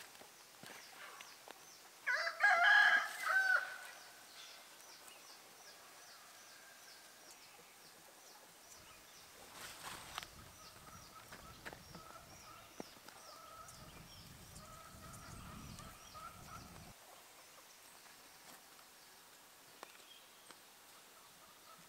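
A rooster crows once, about two seconds in, over a faint, evenly repeated high ticking.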